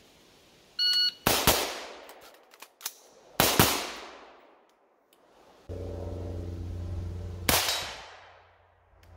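Semi-automatic rifle firing single shots: a short beep, then two shots about two seconds apart, each ringing away for over a second. A few seconds later, over a steady low hum, a third shot.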